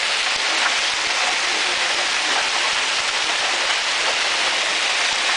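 Heavy hailstorm: hail falling in a dense, steady clatter of countless small impacts.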